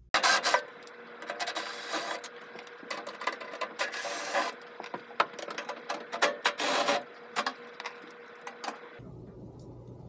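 Clicking, scraping and rubbing of tools and metal parts as a blower motor is worked out of a McQuay water source heat pump's blower housing. There are two louder, brief rushes of noise about four and six and a half seconds in, over a faint steady hum. The noise stops abruptly a second before the end.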